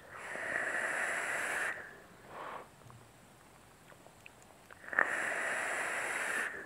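Two long draws on a vape mod with a Kennedy-clone dripping atomizer and a 0.8-ohm kanthal coil: a hiss of air pulled through the firing atomizer, with a steady high tone in it. A short, softer breath, the exhale, comes between the two draws.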